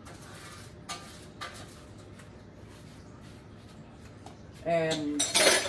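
Kitchen handling sounds: a few soft clicks and knocks in the first second or so, then a short, loud rustling clatter near the end.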